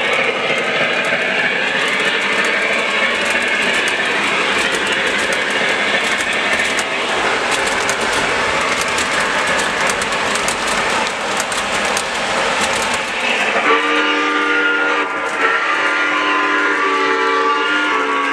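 O scale three-rail model passenger train, Golden Gate Depot Southern Pacific Daylight cars, rolling past close by with steady running noise and quick clicking of wheels over the track. About 14 seconds in, the steam locomotive's sound system blows a chime whistle, held with small breaks to the end.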